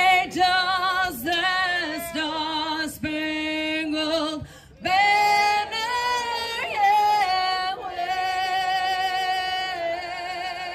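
A woman singing solo, with no instruments shown, holding long notes with a wide vibrato. From about five seconds in she sustains one long high note.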